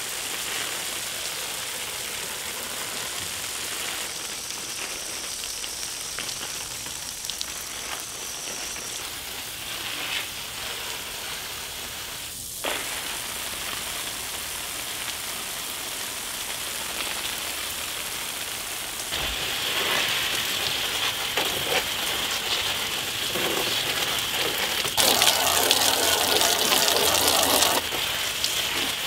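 Garden hose spray nozzle watering potted hydrangeas: a steady hiss of spray pattering on leaves and soil, louder about two-thirds of the way through and loudest near the end.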